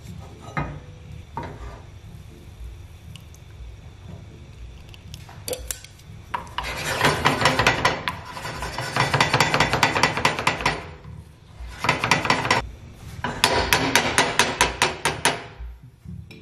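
Wooden chopsticks rapidly stirring beaten eggs in a nonstick frying pan, a fast run of scraping and clicking against the pan while it is shaken on the burner. It comes in two long bursts, starting about six seconds in and again about twelve seconds in, with a short pause between them.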